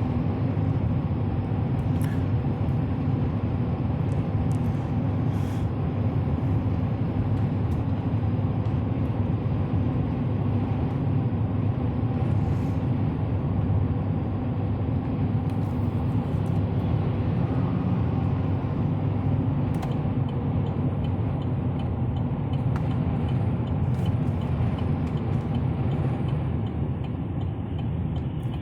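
A 2015 Chevrolet Silverado 3500 with the 6.6-litre Duramax V8 turbodiesel, heard from inside the cab while driving: steady engine and road noise.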